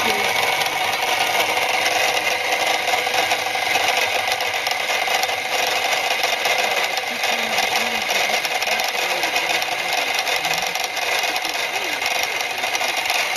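Cyclone Waste Heat Engine, a water-lubricated six-cylinder radial steam engine, running steadily on steam with a fast, even mechanical clatter.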